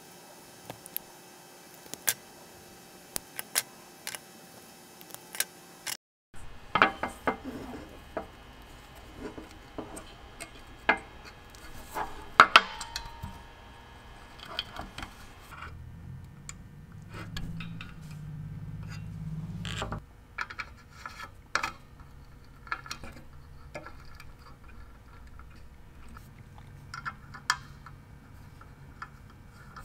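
Close handling sounds of wiring work: scattered light clicks and taps of a hand tool, wire and small brass terminal screws on a metal bell mechanism, with a low rubbing rumble for a few seconds past the middle. The background changes abruptly about six seconds in.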